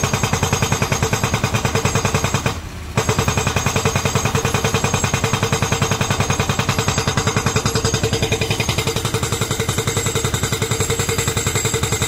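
Hydraulic rock breaker on a Hitachi excavator hammering rock: a rapid, even run of blows that stops briefly about two and a half seconds in, then carries on.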